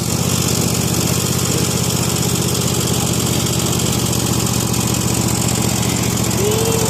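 Toro TimeCutter SS5000 zero-turn mower engine running steadily just after starting, a sign that the no-crank, no-start fault is fixed.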